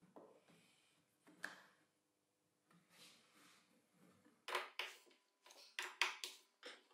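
Quiet workshop handling: an aluminium profile fence being slid and seated against a plywood sled base, with a light sharp click about a second and a half in. In the last two and a half seconds come a cluster of sharp clicks and scrapes as screws are driven into the sled with a screwdriver.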